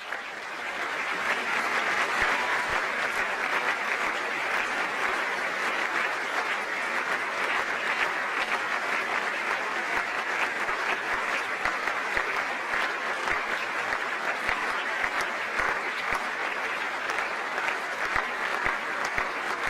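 A crowd applauding steadily: a dense patter of many hand claps that swells over the first couple of seconds, then holds at an even level.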